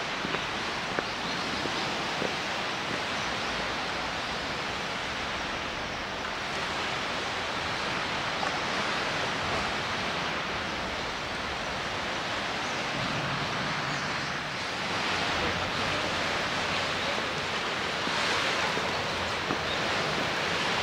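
Steady rushing sound of sea surf and wind, swelling a little in the last few seconds.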